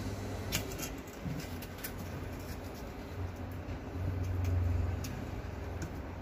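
Light clicks and taps of a glass slide being set on a student microscope's stage and pushed under its metal stage clips, over a low hum that swells for about a second past the middle.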